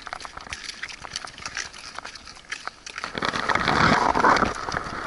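Wild boars crunching dry pellet food and shuffling their trotters on gravel: a run of crisp irregular clicks. About three seconds in, a louder rough rustling noise lasts about a second and a half.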